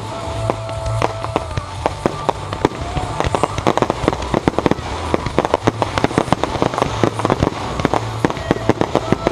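Fireworks display: aerial shells launching and bursting one after another, the bangs coming thicker and faster from about three seconds in.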